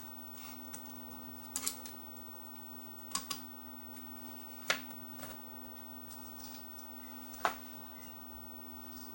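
Sharp clicks of small hand tools working on an old radio chassis, four or so spaced strokes, over a steady low hum.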